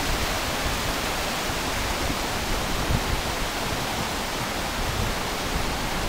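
River in full flood rushing over rapids and falls: a steady, even rush of white water.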